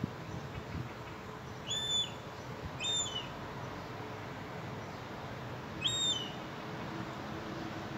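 Juvenile herring gull giving three short, high, whistled calls, each rising then dropping away: two a second apart, then one more about three seconds later.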